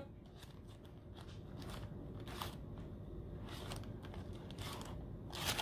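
Faint room tone with a few soft clicks and rustles from small handling noises, the clearest one near the end.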